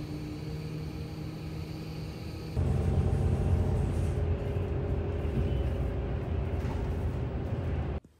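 Cabin sound of an airport apron shuttle bus: a steady engine hum with a faint whine, then about two and a half seconds in a louder low rumble of the bus running, which cuts off abruptly just before the end.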